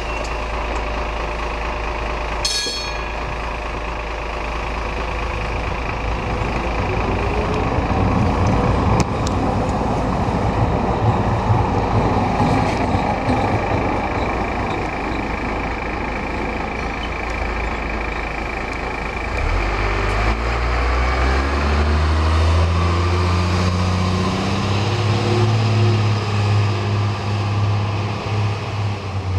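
Sheffield Supertram tram pulling away from a stop. There is a sharp knock a couple of seconds in, then the whine of the traction motors rises as the tram accelerates, over a steady electrical hum. In the last third a deeper engine note climbs in pitch in several steps.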